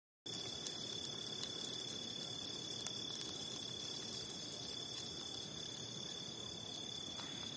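Crickets chirring steadily: a continuous high-pitched trill over a soft, even hiss.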